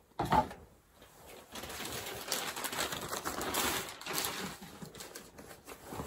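Clear plastic packaging rustling and crinkling as a large cloth vacuum dust bag is handled and pulled out of it, after a short noise just after the start.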